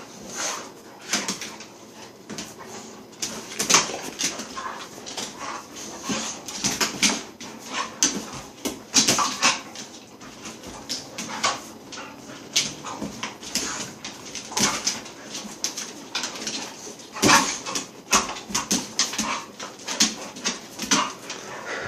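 Two dogs play-fighting, with whimpers and short vocal noises and scuffling on a hard tile floor, in irregular bursts.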